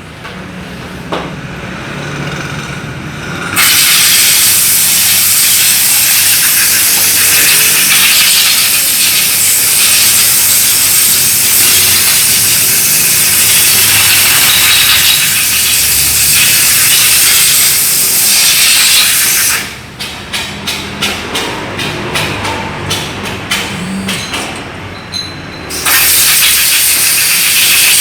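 Compressed-air blow gun hissing in a long continuous blast. Then comes a string of short, quick bursts for several seconds, then another long blast.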